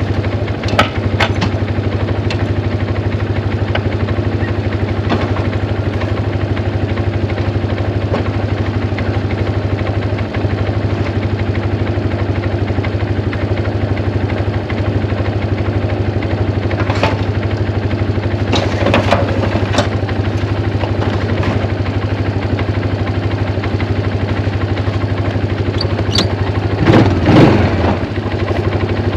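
Engine of a snow-plowing vehicle running steadily under light load, with a few short knocks and clatters, the loudest cluster near the end.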